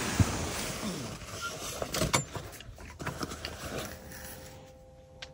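Rustling of a nylon sleeping bag and puffy jacket as someone shifts and sits up, with a few handling knocks around two seconds in. Near the end, the softer sound of a banana being peeled.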